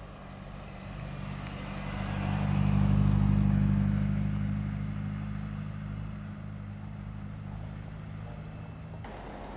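Engine and exhaust of a first-generation MINI Cooper S, its supercharged four-cylinder, as the car drives slowly past at a steady low engine speed. The low exhaust note grows louder to a peak about three seconds in, then fades as the car pulls away.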